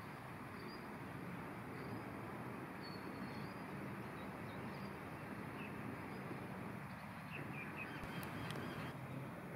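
Faint bird chirps, short and scattered, more of them near the end, over a steady background hiss.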